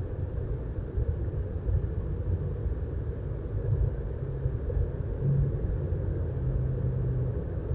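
Steady low outdoor rumble with no distinct events: constant background noise, heaviest in the bass, picked up by the microphone of an outdoor feeder camera.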